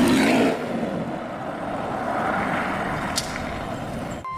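BMW Z4 sports car's engine and road noise as the car drives slowly. It is loud for the first half-second, then settles to a steadier, quieter run.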